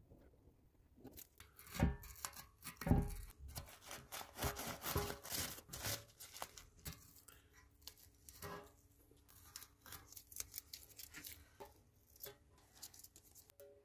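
Irregular rubbing, rustling and tearing noises of hand work at close range, with a few sharp clicks; loudest around two to three seconds in.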